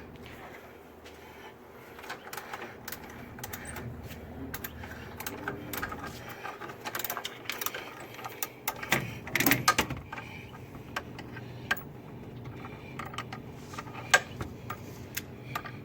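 Hand tools clicking and clinking against metal in irregular bursts during work on a car's A/C compressor, with a denser run of clicks about nine seconds in and one sharp click near the end.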